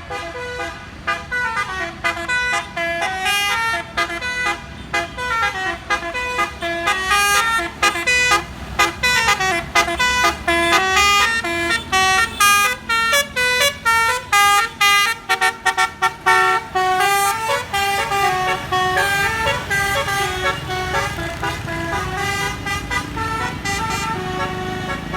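A bus's telolet basuri multi-tone horn plays a long, fast melody of quick stepped notes in rising and falling runs. The bus engine runs underneath and gets louder in the second half.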